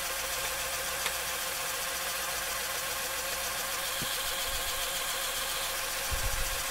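Small electric motors in a Mould King 19002 brick-built crane truck running with a steady whir, with a few soft knocks near the end.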